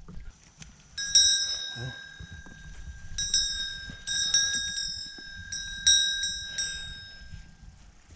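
Small metal bell worn by a donkey, jingling in a series of clear, high-pitched rings as the animal moves, each ring fading out. The first comes about a second in; the rest come between about three and seven seconds.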